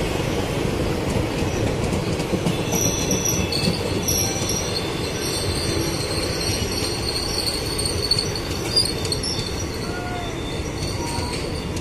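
Passenger train coaches running past at speed: a continuous rumble of wheels on the rails, joined about two and a half seconds in by high-pitched steel-wheel squealing that keeps on to the end, with a couple of sharper knocks about eight seconds in.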